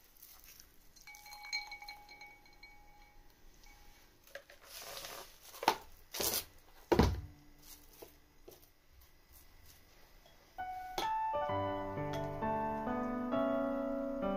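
Plastic cling wrap pulled off the roll with a crinkling rustle and torn off, with three sharp knocks, then smoothed over a wooden cutting board. About ten seconds in, gentle piano music starts and becomes the loudest sound.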